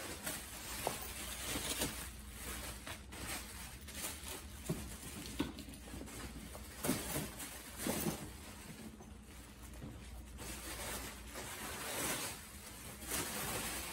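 Plastic bubble wrap rustling and crinkling as it is pulled off a saxophone case, with uneven crackles coming and going.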